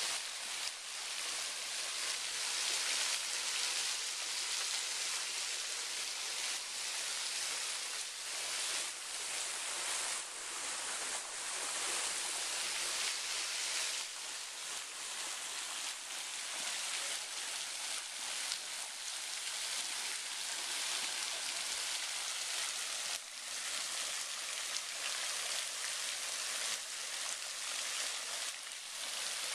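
Steady rush of falling water from a creek cascade or small waterfall, with a few faint knocks.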